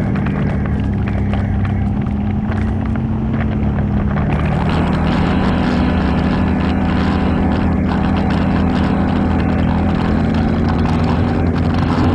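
ATV engine running steadily under way, its pitch stepping up a little about four seconds in, with many small knocks and rattles over it.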